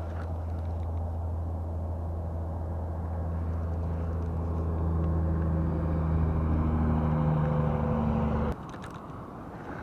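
An engine running steadily with a low hum, growing a little louder, then cutting off abruptly near the end.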